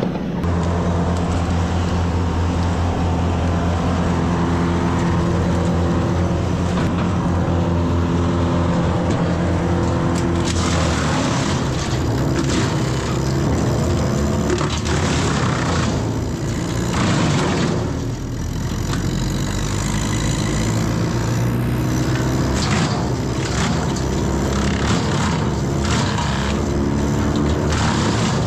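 Engine of tree-work machinery running steadily, its pitch shifting about ten seconds in and again near eighteen seconds, with scattered noisy crackles in the second half.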